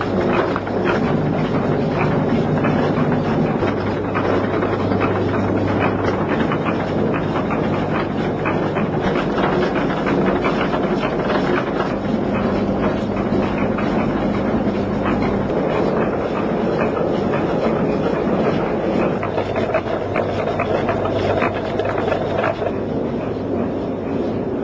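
Grain mill machinery running: pulleys and drive shafts turning, with a dense steady clatter over a low hum. The clatter gets a little softer near the end.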